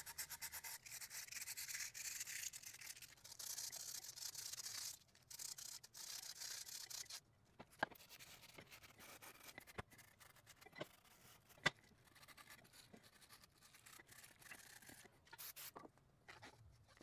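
Abrasive paper rubbed by hand in quick back-and-forth strokes over a carbon-fibre fork crown, keying the surface for bonding. The sanding stops about seven seconds in, leaving light clicks and taps of handling.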